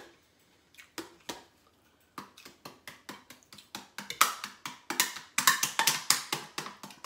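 A metal spoon tapping and scraping on a ceramic plate while food is served: a few scattered taps, then a quick, busy run of clinks from about four seconds in.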